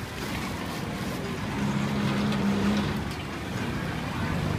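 Street traffic: a motor vehicle's engine hums past, swelling to its loudest around the middle and then easing off.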